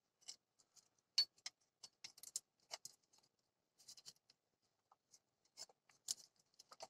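Faint, irregular light clicks and taps of a small pry tool working at the front plate of a 2007 Nissan Murano's A/C compressor clutch, prying it off after the center bolt is out.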